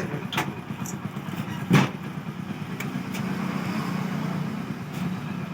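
A steady low machine hum, engine-like, with a few short clicks and one loud sharp knock about two seconds in.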